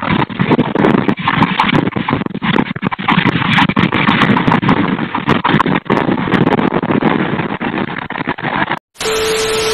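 Single-cylinder diesel engine of a small Chinese tractor running with a rapid, uneven knocking chug, heard through a security camera's muffled microphone. It cuts off near the end.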